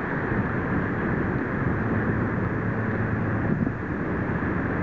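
Steady rush of wind buffeting the microphone on a windy bay shore, with a faint low hum partway through.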